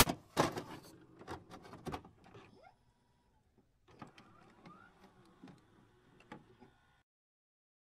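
Electronic glitch sound effects: scattered sharp clicks and crackles with a few short rising chirps, louder in the first two seconds and fainter after a brief gap, cutting off about seven seconds in.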